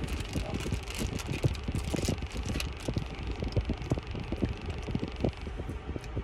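Steady low hum of a car's engine and air conditioning running, heard inside the cabin, with many small irregular clicks and crackles over it.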